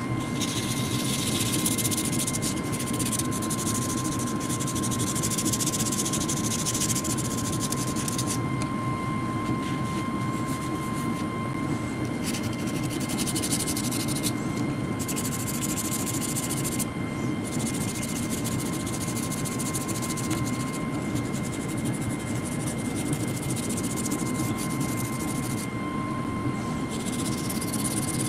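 Steady machine drone with a constant high whine, and a high hiss that comes and goes every few seconds.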